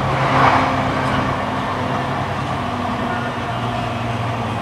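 E235 series electric train heard from inside a motor car: the SiC-VVVF inverter and traction motors hum with steady low tones that shift in pitch, over the wheels' running noise on the rails, as the train slows into a station. A level-crossing bell passes in the first moment.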